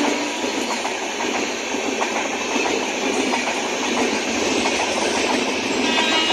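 Express train's passenger coaches rushing past at speed, wheels clattering over the rail joints in a quick, continuous clickety-clack.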